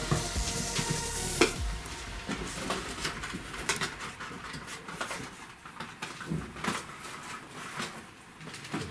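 Cardboard boxes and small objects being handled and put back on shelves: rustling, with scattered light knocks and clicks.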